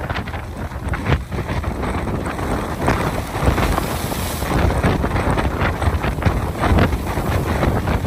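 Strong hurricane wind gusting over the microphone, on top of storm waves breaking on the shore. The sound is a dense, uneven rumble that swells with each gust.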